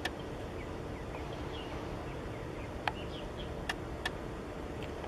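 Steady low rumble of wind and a large container ship passing close by, with a faint hum. Several short sharp ticks come through it, and a few faint bird chirps sound in the middle.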